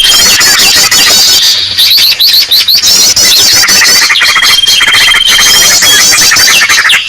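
Bird-lure recording of small birds calling: a loud, dense mix of rapid chirps and twitters overlapping without pause, with a long steady high whistle held for about a second and a half some four seconds in.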